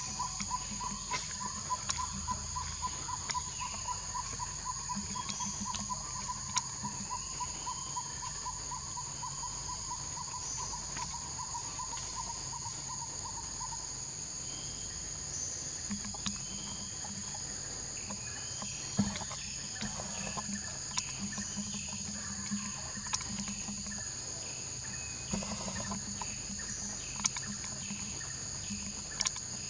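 Steady high insect chorus of forest crickets or cicadas. A rapid pulsing trill runs alongside it and stops about halfway through. Scattered short chirps and a few sharp clicks fall over it.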